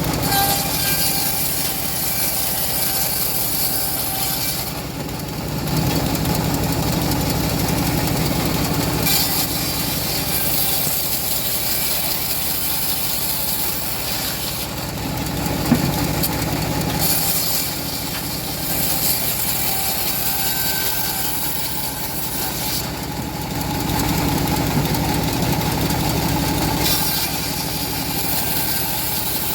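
Homemade bandsaw sawmill running steadily, its blade cutting through a teak log; a high hiss from the cut swells and drops away in stretches of a few seconds, and there is one sharp click about halfway through.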